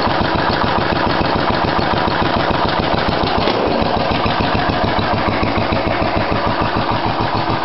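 1973 Case 444 garden tractor's single-cylinder engine running steadily at idle with an even firing beat, a minute or so after a cold start.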